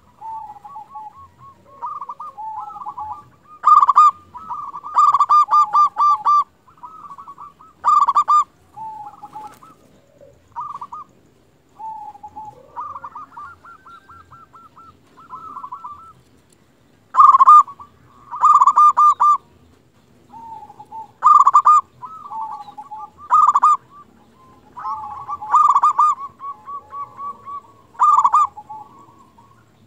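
Zebra dove (perkutut) cooing vigorously: repeated phrases of quick, rolling coo notes with short pauses between them.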